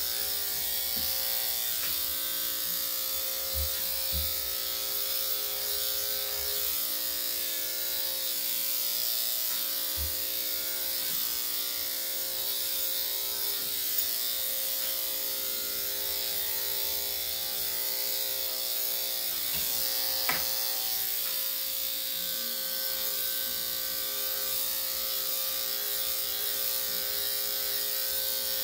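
Corded electric dog clippers fitted with a 3/4-inch blade, running with a steady buzz as they shave through a Shih Tzu's coat.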